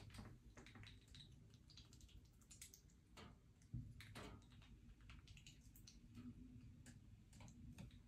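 Near silence with faint, scattered clicks and light taps, and one soft thump a little under four seconds in.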